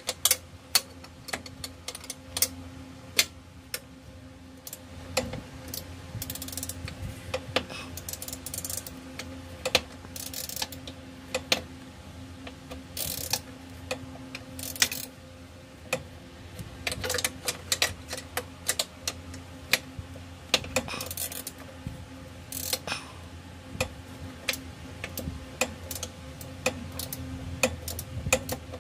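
Ratcheting box-end wrench clicking in short, irregular strokes as it slowly backs off the upper bolt of a 2011 Toyota RAV4's rear shock absorber, with little room to swing. A faint steady hum runs underneath.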